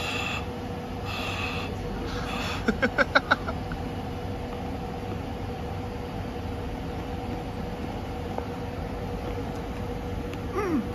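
A man gasping and crying out at the burn of extremely hot and sour sweets: a few breathy cries at the start, then a quick run of five short, loud cries about three seconds in, and a falling groan near the end. Under it runs the steady hum of a railway station.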